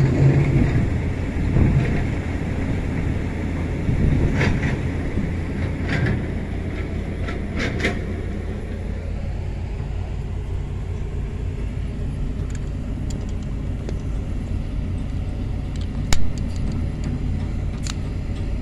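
Kobelco excavator's diesel engine running steadily, heard from inside the operator's cab. A few scattered clicks and one sharp knock near the end.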